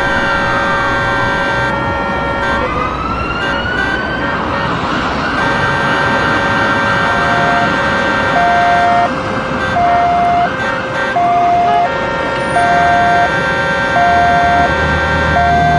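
Emergency-vehicle sirens over city traffic. A wailing siren glides down and back up in the first few seconds. From about halfway, a two-tone siren alternates high and low, each note about three quarters of a second long, over steady horn tones and traffic noise.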